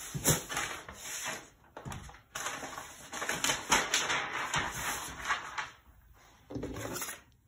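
Paper rustling and crinkling as it is handled, with small clicks and knocks, in two stretches broken by a brief pause about two seconds in.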